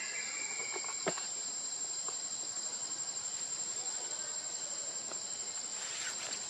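Steady high-pitched insect chorus shrilling without a break, with one sharp click about a second in and a few faint ticks after.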